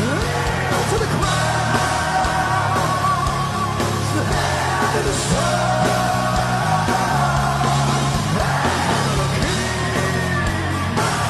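Heavy metal band playing live at full volume: distorted electric guitars, bass and drums, with a singer's shouted vocals over them.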